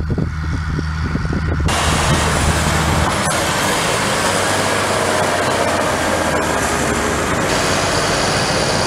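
Loud electronic intro-template audio: a deep bass tone for about the first three seconds, with a dense rushing wash of noise coming in just under two seconds in and holding steady until it cuts off at the end.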